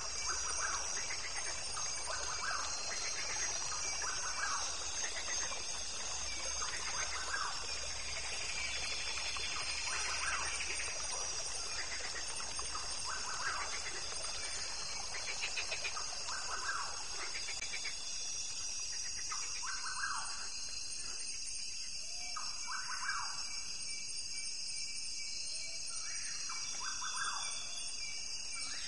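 Nature ambience recording: birds calling in short repeated bursts every second or two, over a steady high-pitched drone.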